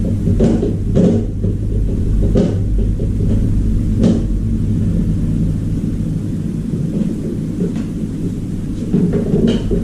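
A steady low rumble with several short, scattered knocks.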